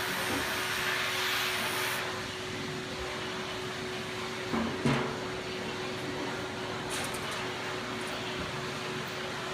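Steady electric hum of grooming-salon equipment, with a high hiss that cuts off about two seconds in and a short knock about halfway through.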